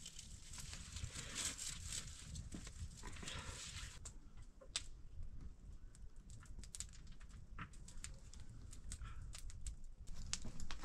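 Wood fire crackling, with scattered sharp pops over a low rumble; a rustling hiss fills the first few seconds.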